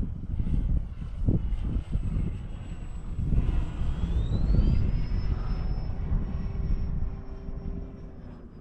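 Electric RC airplane's brushless motor and propeller whining, rising in pitch about three seconds in as the throttle opens, then holding steady. Heavy wind buffets the microphone underneath.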